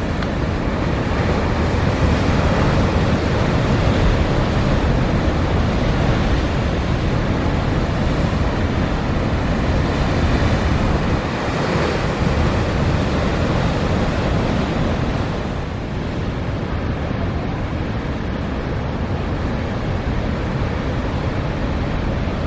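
Heavy storm surf breaking on a rocky shore in a continuous loud wash, swelling and easing as the waves come in, with strong wind buffeting the microphone.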